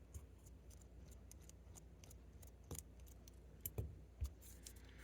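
Faint small clicks and taps of metal watchmaker's tools against a mechanical watch movement, with three sharper taps in the second half.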